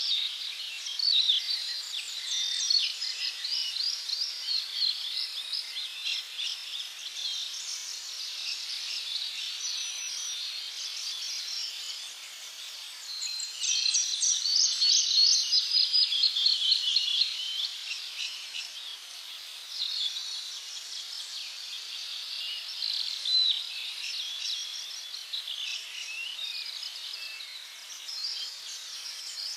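A chorus of small birds chirping and singing in rapid high notes. About halfway through, a louder run of fast repeated notes lasts a few seconds.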